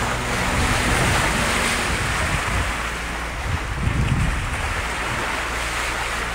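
Steady rush of wind and sea on the open deck of a sailing catamaran under way, with wind buffeting the microphone.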